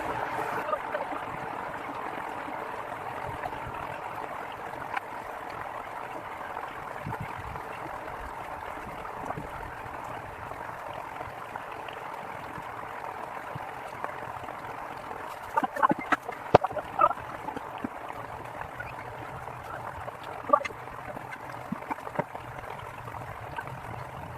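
Steady rushing water noise, with a cluster of sharp clicks and knocks about two-thirds of the way in and a few single ones later.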